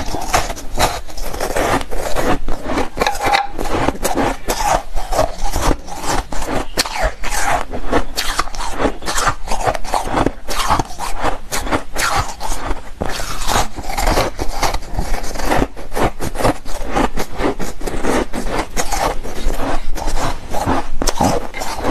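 Crunching of a white block of carbonate ice being bitten and chewed: a dense, unbroken run of crisp crackling crunches.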